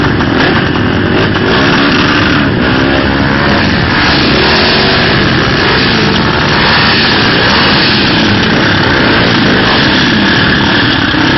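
Off-road motorcycle and quad bike engines running and revving, their pitch rising and falling again and again.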